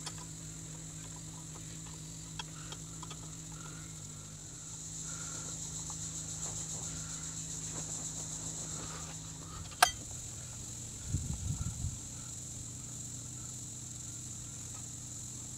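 Hand work on a drum handbrake shoe assembly: faint metallic ticks from the return spring and hand tools, with one sharper click about ten seconds in. A steady high-pitched drone runs underneath.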